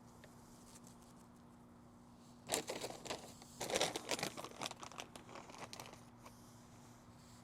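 Crinkling and rustling of something being handled, starting about two and a half seconds in and lasting about three seconds.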